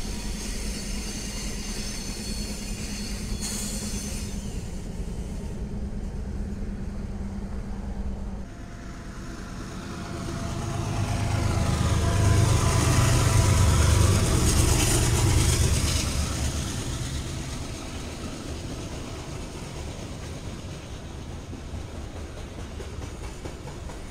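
Diesel freight trains passing. First a BNSF locomotive consist rolls by at a distance with a steady low hum. After a sudden change, a second BNSF train passes close, loudest as its locomotives go by, then easing into the steadier rumble of freight cars rolling past.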